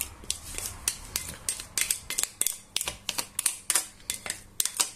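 A spoon clicking and scraping against the inside of a large glass bowl while marinated meat and vegetables are scooped out onto a baking tray: a quick, irregular run of sharp clicks, about three or four a second.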